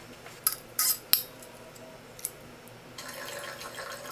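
A few sharp clicks in the first second or so, the loudest about a second in. Then, about three seconds in, red wine pouring from a bottle into a large Riedel New World Pinot Noir wine glass.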